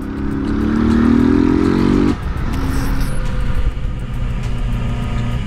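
Motorcycle engine accelerating, its pitch rising for about two seconds, then cut off abruptly. A different motorcycle's engine follows, running steadily at a lower pitch over road and wind noise.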